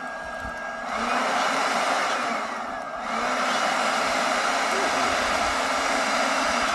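Steady rushing noise like blown air, starting about a second in, with a brief dip around three seconds.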